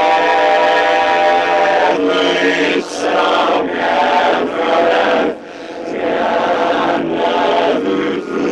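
Group of voices chanting in unison: a long held chord, then short chanted phrases broken by brief gaps.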